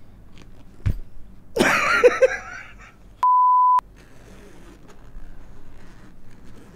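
A short, loud vocal outburst, then a half-second bleep at a single pitch of about 1 kHz edited into the soundtrack, with all other sound cut out while it plays. A dull thump comes just before the outburst.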